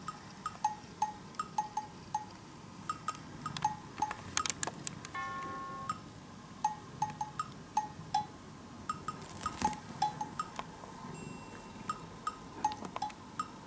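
Background music: a light, playful tune of short plinking percussive notes like wood block and cowbell, with a brief chime-like tone about five seconds in.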